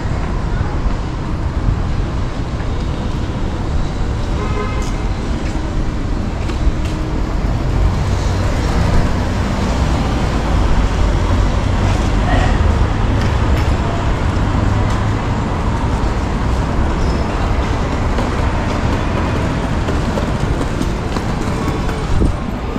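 Steady urban street noise: road traffic running past with a heavy low rumble, and faint voices in the background.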